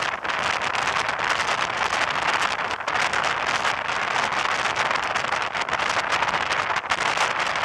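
Wind and road noise of a moving road vehicle, a steady rushing hiss with many small crackles running through it.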